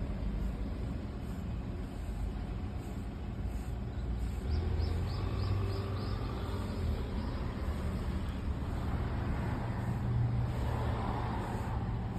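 Road traffic: a steady low rumble that swells about four and a half seconds in and again around ten seconds.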